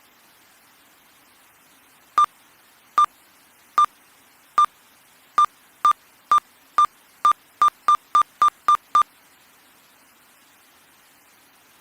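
A run of about fifteen short electronic beeps, all on one pitch, over faint static hiss. They start nearly a second apart and quicken to about four a second before stopping abruptly.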